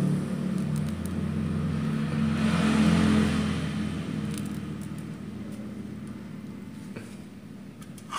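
A vehicle engine running over a steady low hum; its sound swells about three seconds in and then fades away.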